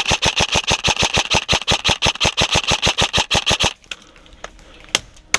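Airsoft rifle firing a long full-auto burst of rapid, evenly spaced shots as covering fire, stopping about two thirds of the way through. Two single sharp shots follow near the end.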